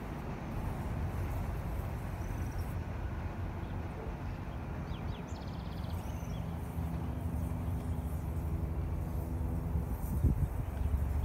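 Steady low outdoor rumble with an engine-like hum coming in about halfway, and a few faint bird chirps.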